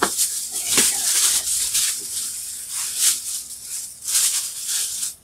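Crinkly wrapping rustling loudly in uneven surges as a camera bag is pulled out of it, with a couple of sharp handling knocks near the start. The rustling stops suddenly at the end.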